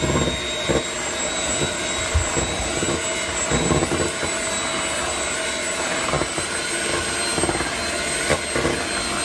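Electric hand mixer running steadily, its beaters whirring through thick chocolate cake batter in a stainless steel bowl, with a few short knocks along the way.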